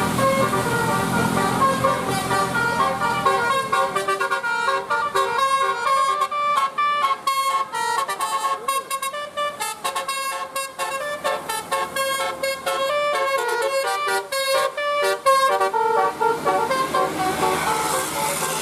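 Telolet bus horn, a multi-tone musical horn, playing a fast tune of short notes in several tones at once. It starts about two seconds in and stops about two seconds before the end, with a steady hiss of heavy rain around it.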